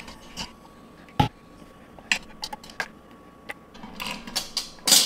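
Metal jar-lifter tongs clicking against glass canning jars and their metal lids as jars are lifted out of an Instant Pot Max pressure canner and set down on a wooden counter. There is a heavier knock about a second in and a louder clatter near the end.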